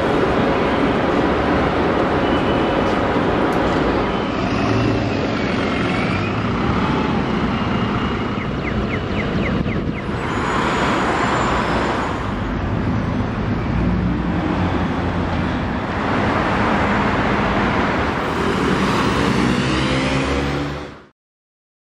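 Night-time city road traffic: a steady rumble of engines and tyres, with cars and buses passing one after another in rising and falling swells from about halfway, and an engine speeding up just before the sound fades out quickly near the end.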